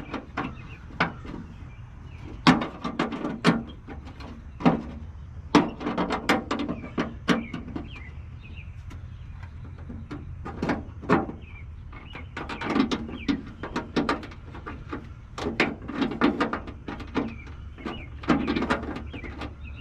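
Irregular metallic clicks and knocks of a hand wrench turning a bolt that is threading into a plastic running-light housing, with a few taps in quick clusters.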